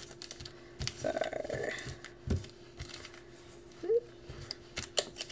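Foil Pokémon booster packs being handled and set down on a desk: a few light taps and rustles over a steady hum. A short voice-like sound about a second in and a brief rising one near four seconds.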